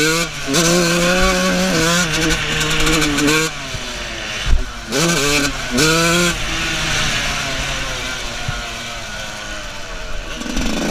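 125 cc two-stroke motocross bike engine revving hard under acceleration, its pitch climbing and falling with throttle and gear changes, with wind rush over the helmet camera. The engine drops back to a quieter, steadier run for a few seconds in the second half, then revs up again near the end; a single sharp thump about four and a half seconds in.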